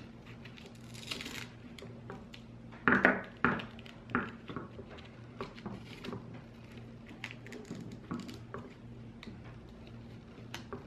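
Hands handling a quadcopter's frame, battery strap and cables on a tabletop: scattered clicks, knocks and rubbing, the loudest a pair of knocks about three seconds in, over a faint steady hum.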